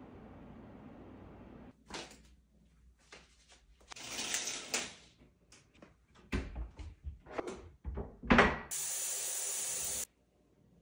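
Kitchen cupboard doors and items being handled: a series of knocks and clatters, the loudest a bang about eight seconds in. Then a steady rush like a sink tap running for about a second and a half, cut off suddenly.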